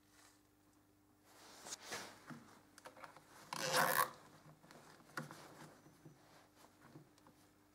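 Plastic cable ties being pulled tight around a stack of mobile phones: short ratcheting zips, the longest and loudest a bit past halfway, amid rubbing and clicks from gloved hands handling the phones.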